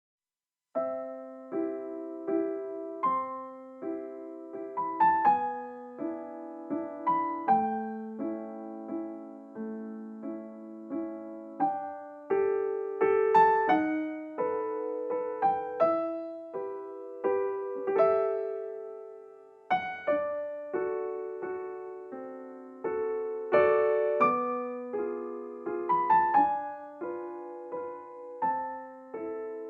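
Background music: solo piano playing a slow, gentle melody of struck notes that ring and fade.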